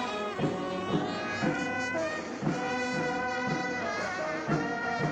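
Brass marching band playing a march: trumpets and trombones carrying the tune over a steady bass-drum beat.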